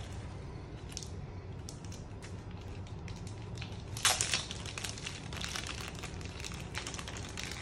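Clear plastic wrapping on a deck of cards crinkling as it is handled, with a louder burst of crinkling about four seconds in.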